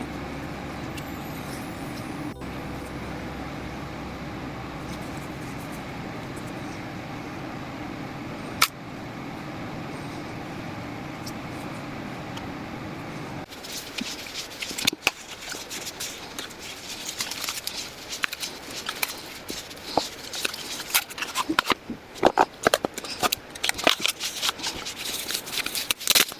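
A steady low hum for the first half, then, about halfway through, a dense run of small clicks, taps and crinkly rustling, typical of a small camera's plastic parts and packaging being handled and unpacked.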